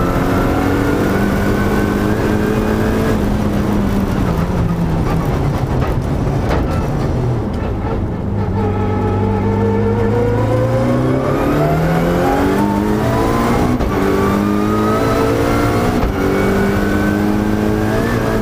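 Mitsubishi Lancer Evolution race car's turbocharged four-cylinder engine heard from inside the cabin, under hard track driving. The revs hold high, fall away for several seconds to a low point about halfway through, then climb again, the pitch stepping down at each quick paddle-shift upshift near the end.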